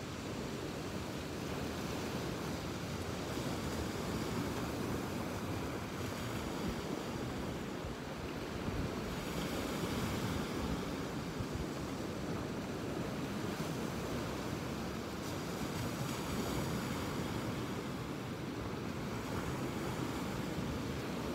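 Ocean surf: waves breaking and washing up the beach as a steady rushing, which swells about halfway through.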